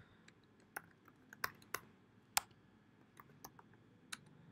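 Typing on a computer keyboard: about a dozen faint, separate keystrokes at an uneven, unhurried pace.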